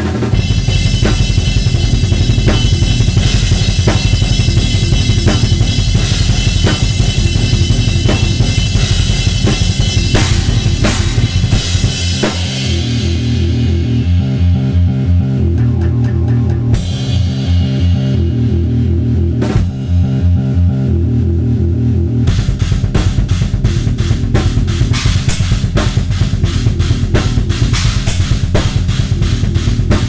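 Acoustic drum kit played hard and fast: rapid bass drum strokes under snare, toms and crashing cymbals. From about 12 seconds in the cymbals die away, leaving drums alone, until about 22 seconds, when fast strokes with cymbals come back in.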